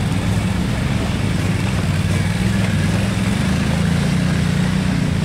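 ATV (quad bike) engine running steadily as it drives through shallow water, with the engine note rising a little about four seconds in.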